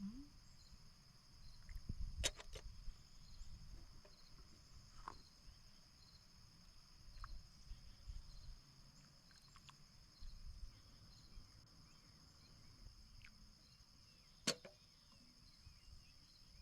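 Quiet outdoor ambience with a steady high-pitched hiss and low rumbling. Occasional sharp clicks and snaps stand out: two loud ones, about two seconds in and near the end, and a few fainter ticks between.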